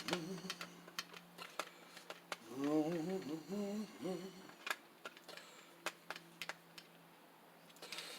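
Scattered sharp clicks of a hand wrench as the small 7mm fasteners on a push mower's carburetor are tightened by hand. A man hums briefly in the middle.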